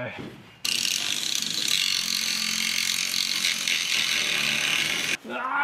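Cordless angle grinder grinding steel on a truck frame, taking metal out of the frame opening so the C-notch piece fits: a steady high grinding hiss over a low motor hum. It starts abruptly just over half a second in and cuts off abruptly about five seconds in.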